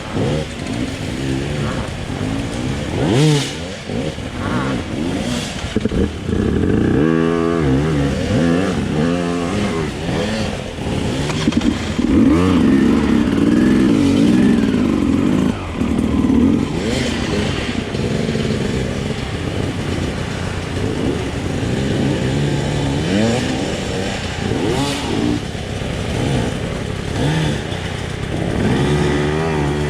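Dirt bike engine under hard riding, revving up and down over and over as the throttle is worked, with a few knocks mixed in.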